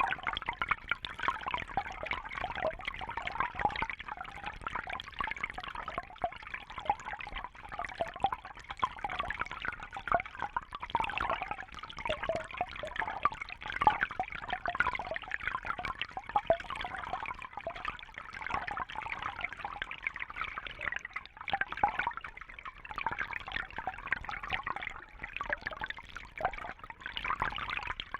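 Small brook babbling: shallow water trickling and gurgling over stones, a steady bright rippling with constant small splashes.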